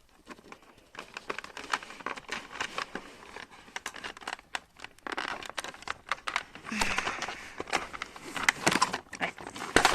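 Scissors snipping at plastic packaging and ties, with the packaging crinkling and crackling as it is handled: a string of short sharp clicks and rustles, busier towards the end.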